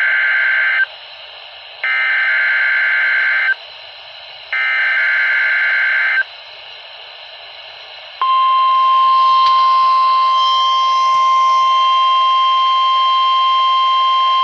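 NOAA Weather Radio alert signal: three short bursts of warbling digital data tones (the SAME header that tells receivers which counties and what alert follows), then the steady 1050 Hz weather alert tone starting about 8 seconds in, the sign that a warning, here a high wind warning, is about to be read.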